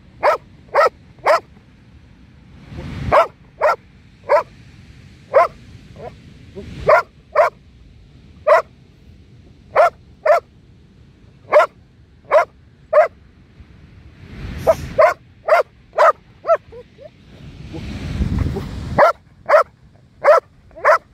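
Belgian Malinois barking hard and repeatedly: sharp single barks, one or two a second, with a quick volley of barks partway through. Swells of rushing noise rise under the barking three times; the last and loudest builds up and cuts off suddenly.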